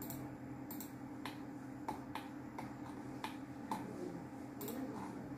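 Computer mouse clicking: sharp, irregular clicks, roughly two a second, over a steady low hum.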